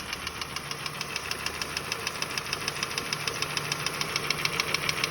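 Hyundai Sonata 2.4-litre G4KC four-cylinder engine running with a fast, even knocking tick. The knock has survived a rebuild, new timing-chain tensioners and a replacement cylinder head, and oil pressure is normal at 3.5, so its cause is still unknown to the owner.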